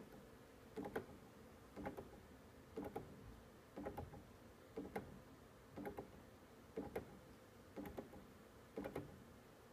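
Prototype bipolar clock stepping motor, fed alternating-polarity pulses from a quartz clock circuit through H-bridges, ticking once a second as it steps. Each tick is a short cluster of two or three clicks.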